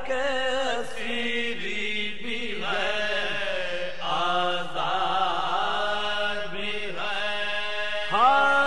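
Male voice chanting a marsiya in soz style: a long, drawn-out melodic phrase of held, wavering notes.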